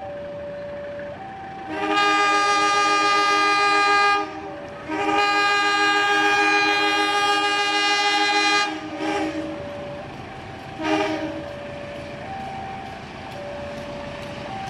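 Locomotive air horn of the Kamandaka passenger train sounding a chord in two long blasts with a short break between them, then a brief toot a couple of seconds later, as it approaches a station. Underneath, a quieter two-note electronic tone keeps stepping back and forth between its notes.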